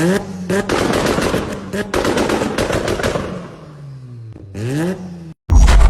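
Tuned car engine revving up and down with rapid loud exhaust pops and bangs, backfires from a modified exhaust. Near the end the sound cuts out for a moment and a loud low rumble starts abruptly.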